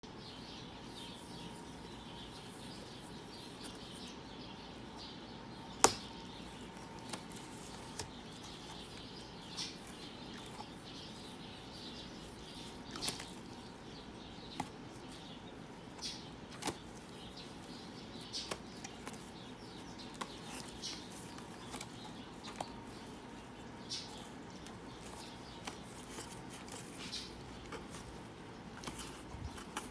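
Two beagles sniffing and snuffling quietly into the holes of a cardboard box as they hunt for treats. Short sniffs come irregularly, along with occasional sharp taps against the cardboard; the loudest tap comes about six seconds in.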